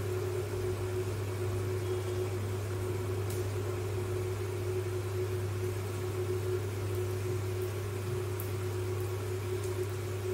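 A steady mechanical hum with a faint higher tone held over it, at an even level, and a few faint light clicks.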